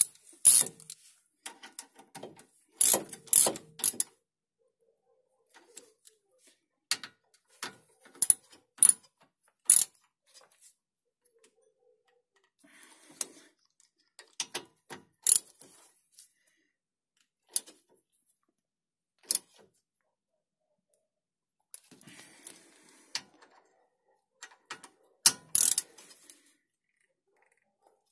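Irregular sharp metallic clicks and clinks of a hex bit and ratchet working on brake-caliper guide-pin bolts as they are run in and tightened. The clicks come in scattered clusters with short quiet gaps between them.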